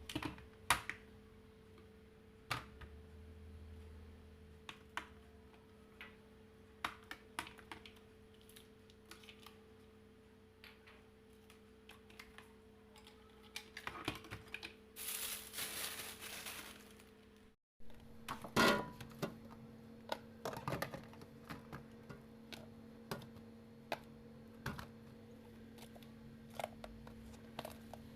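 Scattered light clicks and knocks of items being handled during fridge cleaning, over a steady low hum, with a brief rushing noise about halfway through.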